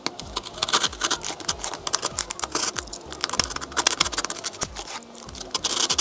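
Snap-off utility knife cutting through a paper-covered cardboard box: a fast, uneven run of scratchy clicks as the blade is drawn along the cut.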